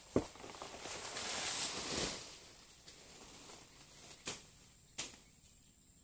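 Dry banana leaves rustling for about two seconds as someone moves through them, after a sharp knock just at the start. Two short sharp snaps follow near the end.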